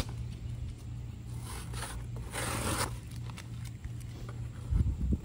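Packing tape being peeled off a cardboard box: a short rip about a second and a half in, then a longer, louder rip a second later. A low thump near the end.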